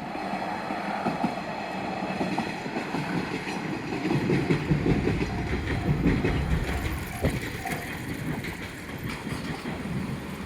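A train passing over a level crossing, its wheels rumbling and clattering over the rail joints, loudest about four to six seconds in. A steady warning tone from the crossing sounds with it and stops about seven seconds in.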